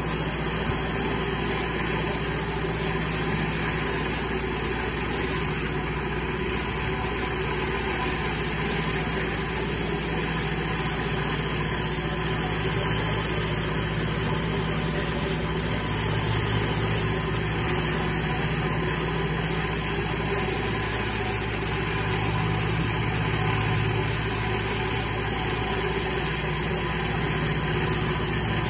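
Pressure washer running steadily: a constant low engine-like hum under an even spray hiss, with no breaks.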